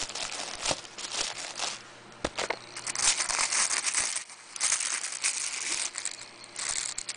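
Plastic packaging crinkling and rustling in uneven spells as it is pulled open by hand around a small laptop, with many small crackles.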